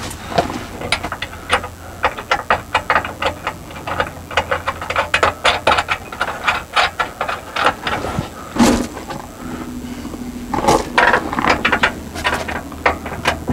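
Ratchet wrench clicking in quick runs as nuts are tightened onto the carriage bolts holding a 5th-wheel camper's landing gear leg, with one louder knock a little past halfway.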